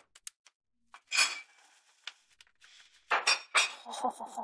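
A foil-lined plastic catnip pouch crinkling as it is handled. There are a few small crackles, a short rustle about a second in, then a longer run of crinkling near the end.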